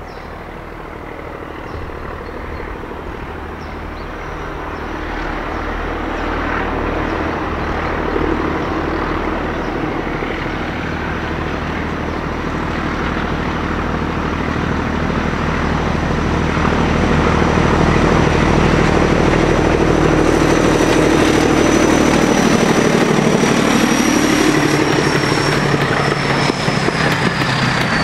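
Class 14 diesel-hydraulic locomotive D9531's Paxman engine working hard as it climbs, growing steadily louder as it approaches. A high whine falls in pitch near the end as it passes.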